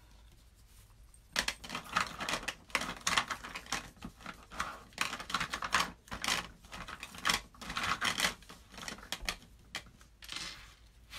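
Colouring strokes on paper: a drawing tool scratching over a sheet in quick, irregular runs of back-and-forth strokes, starting about a second in.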